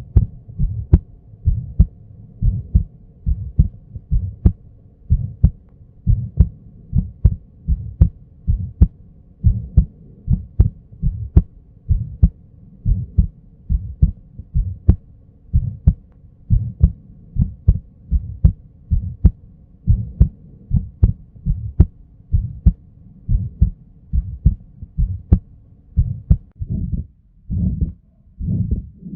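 Heart sounds heard through a stethoscope: a regular train of heartbeats with a murmur between the beats, a pathological finding. A faint steady hum runs under the beats and stops near the end.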